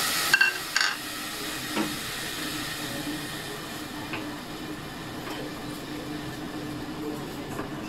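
Marinated pork cooking in a pot on a gas stove: a steady sizzling hiss. Two sharp clinks come in the first second.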